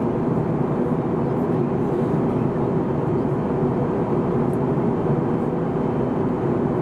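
Steady cabin noise inside an Airbus A321neo airliner in flight: a constant, low, even rush of airflow and Pratt & Whitney geared-turbofan engines heard from a passenger seat.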